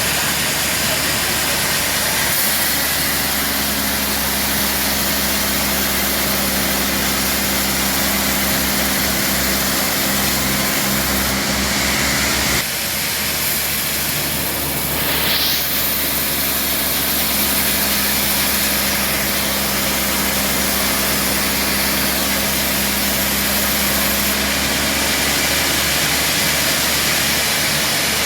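Band sawmill running steadily with a mechanical hum, sawing a trembesi (rain tree) log. The hum breaks off briefly about twelve seconds in and then resumes.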